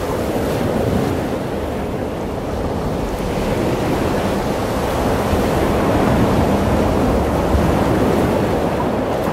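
Ocean surf: waves breaking in a steady wash, with wind buffeting the microphone.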